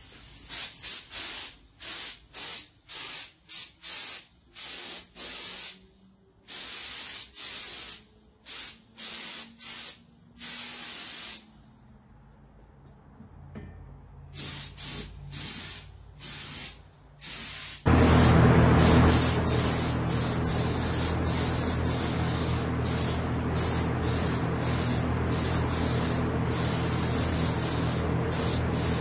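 Compressed-air paint spray gun hissing in many short bursts as the trigger is pulled and released, with a short pause partway. About two-thirds in, it switches to one continuous spray, and a steady low machine hum runs underneath.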